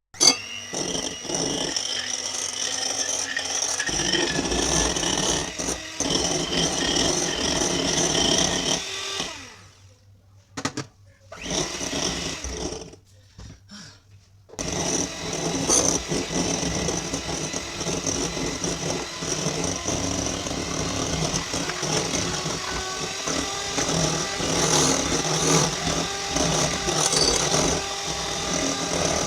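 Electric kitchen mixer running steadily while beating cake batter, with a high whine. It stops about nine seconds in, gives two short spurts, then runs steadily again from about fifteen seconds in.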